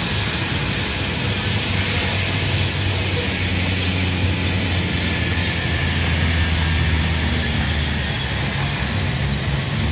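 Steady rumble of a Boeing 737's jet engines as the airliner rolls out on the wet runway after landing, with a low hum underneath.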